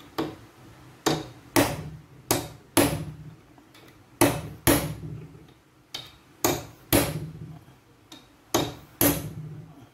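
Hammer striking a steel pin punch held on an old adjustable spanner clamped in a bench vise, to drive out the pin that holds its worm screw. About a dozen sharp metallic taps, mostly in pairs, each ringing briefly.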